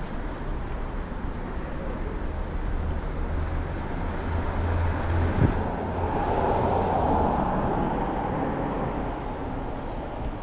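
City street traffic: a vehicle engine runs with a steady low hum, a single knock sounds about five seconds in, and a louder rush of passing traffic swells about six seconds in and then eases off.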